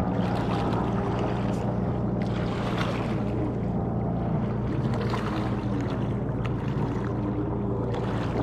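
A steady engine drone, unchanging, with a few faint clicks.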